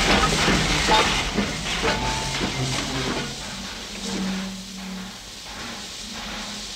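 Passenger train pulling into a station: wheels clattering and a hissing rush that fade as it slows. A couple of low steady tones sound midway.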